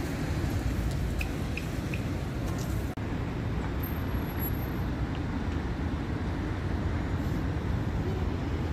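Steady city street traffic noise: a continuous low rumble of cars passing on a nearby road.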